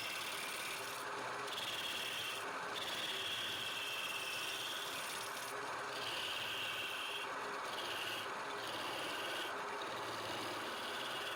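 Wood lathe running while a turning tool cuts into the spinning wood: a scraping hiss that comes and goes in passes of about a second each, several in a row, over the steady hum of the lathe.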